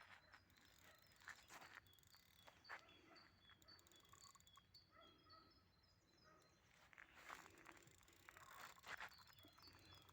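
Faint birdsong: a small bird chirping in short, quickly repeated high notes for a few seconds in the middle, with scattered soft rustles and knocks.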